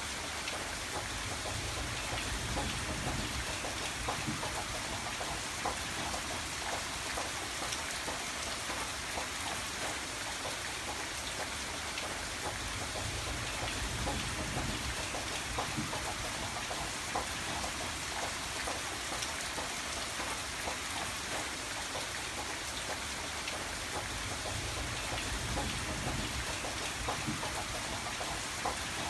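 Steady rain falling, an even hiss dotted with many small drop ticks, over a low rumble that swells and fades every several seconds.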